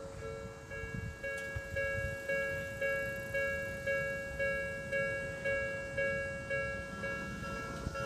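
Japanese railway level-crossing warning bell ringing its "kan-kan" tone, about two strokes a second, while the crossing is closed for a train.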